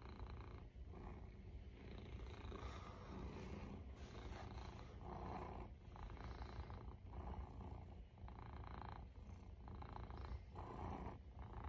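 Domestic cat purring steadily, close up, the purr swelling and dipping with each breath about once a second.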